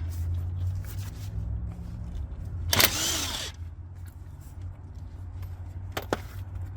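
A DeWalt cordless impact wrench runs in one short burst of under a second, about three seconds in, its motor pitch rising and falling, over a steady low rumble. A single sharp click follows near the end.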